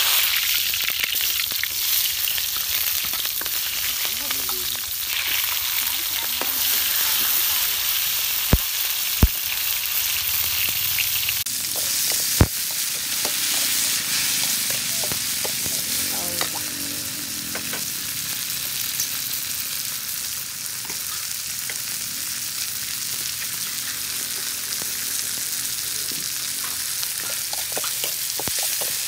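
Chopped aromatics (galangal, lemongrass, onion, garlic, dried chillies, kaffir lime leaves) sizzling in hot vegetable oil in a large metal wok, stirred with a metal ladle. The sizzle holds steady throughout, with three sharp knocks at about nine and twelve seconds in.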